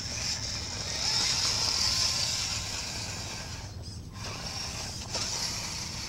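Electric motors and gearboxes of scale RC crawler trucks whining as they crawl over rough dirt, loudest in the first couple of seconds, with a short break about four seconds in.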